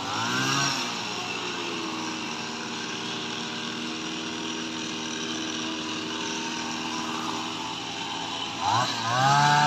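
Small two-stroke petrol engine of a Kamatsu HT230 hedge trimmer. It revs briefly, drops back to a steady idle, then is throttled up sharply near the end and held at high revs.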